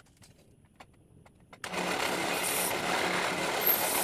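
A small motor-driven power tool starts up about one and a half seconds in and keeps running steadily, after a few faint clicks.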